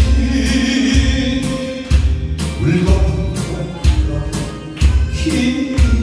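A man singing a Korean song into a microphone over a karaoke backing track, with a low bass beat about once a second.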